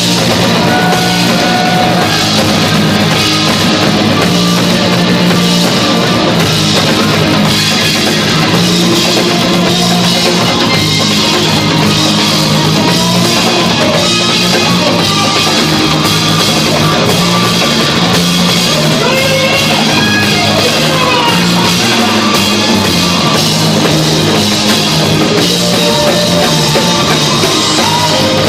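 Rock band playing live at full volume, drum kit driving a dense, unbroken wall of sound.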